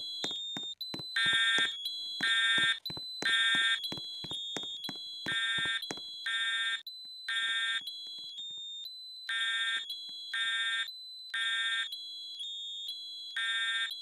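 Fire alarm sounder going off in groups of three buzzy pulses about a second apart, repeating about every four seconds: the temporal-three evacuation pattern. A steady high tone runs under the pulses.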